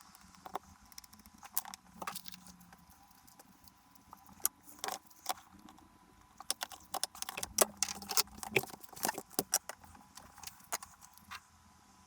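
Irregular metallic clicks, clinks and taps of hand tools and small parts being handled, coming thicker in the second half.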